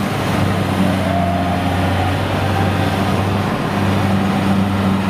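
Kubota DC-70G combine harvester running steadily as it harvests rice in soft, muddy ground: a continuous engine drone with a low, even hum.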